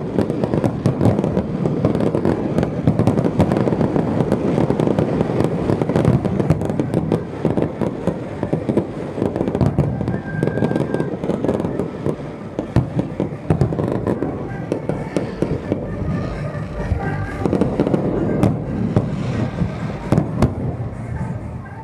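Fireworks display: a dense, continuous barrage of aerial shell bangs and crackle, easing somewhat after the first third.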